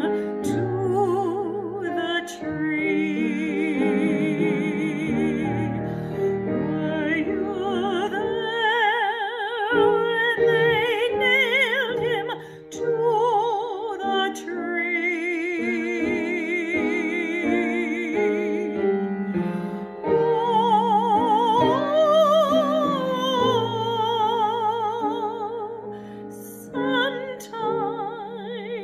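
A woman singing a slow solo hymn in a classical, operatic style with wide vibrato, accompanied by piano.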